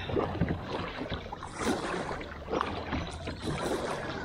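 Kayak paddle strokes splashing through choppy water, a stroke about once a second, over a low rumble of wind on the microphone.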